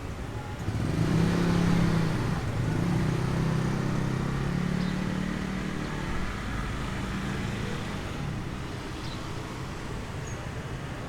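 A motor vehicle's engine going by: a low hum swells about a second in, then fades away over the following several seconds.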